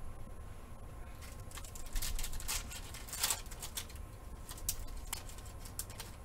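Foil trading-card pack crinkling and tearing as it is ripped open by hand: a run of short crackles, densest around two and three seconds in.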